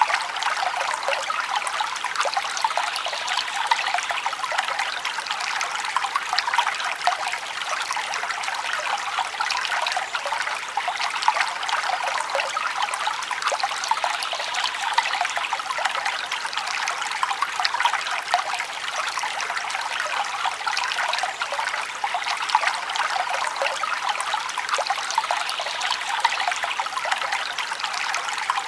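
Small forest stream trickling and babbling steadily over stones, full of tiny bright splashes and with no deep rumble.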